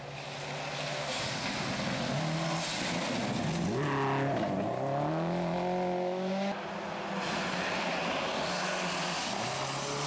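Rally car engine running hard on a gravel stage, its pitch falling about four seconds in, then climbing again in steps through the gears. The level drops suddenly about six and a half seconds in, and the engine carries on.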